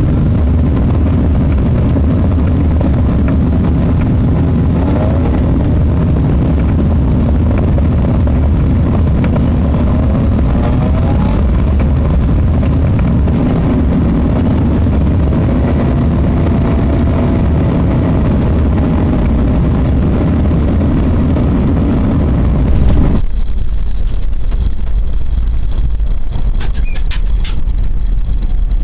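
Subaru EJ22 flat-four engine in a VW bus, heard from inside the cabin while driving on a dirt road, with steady road rumble and the engine pitch rising and falling. About three-quarters of the way through, the sound changes abruptly to a lower, duller rumble.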